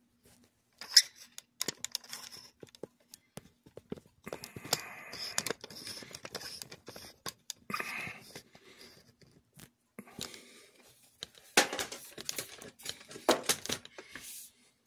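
Handling noises as the shell of a Lionel postwar 671 steam locomotive is worked down over its chassis and wiring: irregular clicks and knocks with stretches of scraping and rustling, the loudest knocks coming in a cluster near the end.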